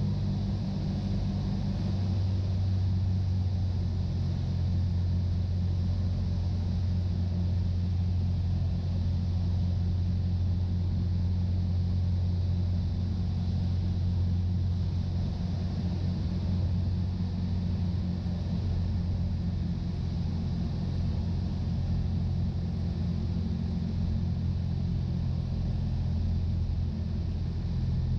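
Cessna 172's piston engine and propeller heard from the cockpit, a steady low drone on final approach for landing.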